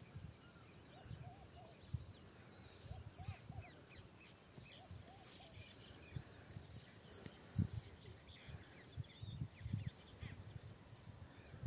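Wild birds calling: many small birds chirping and trilling, with soft lower calls coming in quick runs of about three now and then. Irregular low rumbling thumps run underneath.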